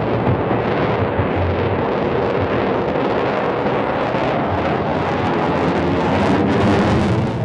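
Loud, steady jet noise from a USAF F-35 fighter's engine during a demonstration flight, a deep rumble that grows slightly louder near the end.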